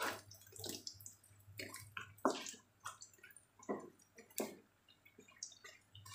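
Battered tempe slices frying in hot oil in a nonstick wok, crackling and popping irregularly, with a wooden spatula knocking and scraping against the pan as the pieces are turned.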